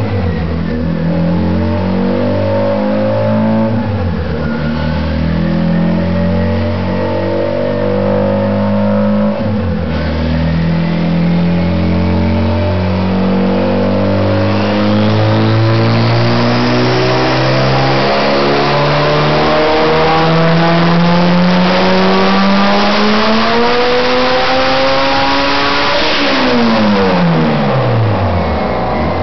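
Turbocharged Honda Civic engine on a chassis dyno pulling hard through the gears. Its pitch climbs, drops twice at gear changes in the first ten seconds, then rises in one long steady pull in a high gear before the revs fall quickly as the throttle is released near the end.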